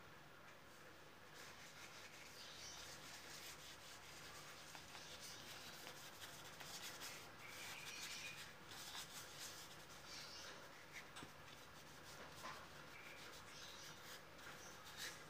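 Faint, scratchy rubbing of a flat bristle brush worked across paper in uneven strokes, strongest around the middle.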